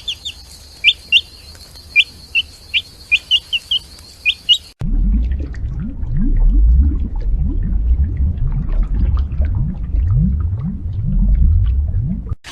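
A bird chirps in short, sharp, falling notes over a steady high hiss. About five seconds in, an abrupt cut brings in a louder, deep animal call: a run of quick, low, rising grunts.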